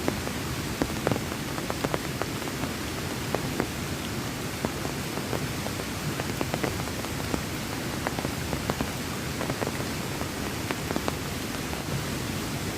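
Heavy rain falling, a steady hiss with many irregular sharp drop hits.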